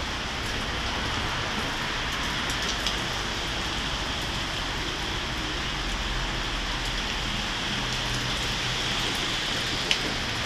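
Steady rain falling, with a low rumble underneath and a couple of sharp ticks near the end.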